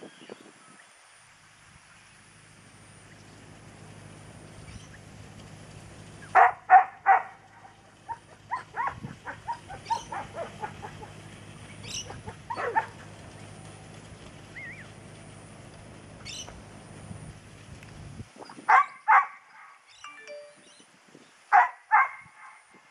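Working cattle dog barking in short, sharp bursts while driving cattle: three loud barks about six seconds in, fainter scattered barks after, then pairs of barks near the end. A low steady hum runs underneath and stops about two-thirds of the way through.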